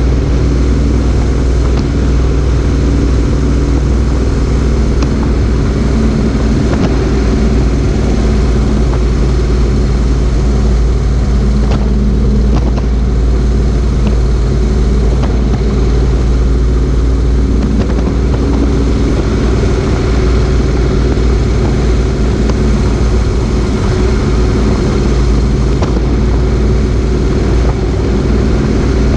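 Motorcycle engine running steadily at cruising speed, with wind and road noise rushing over the low-mounted camera.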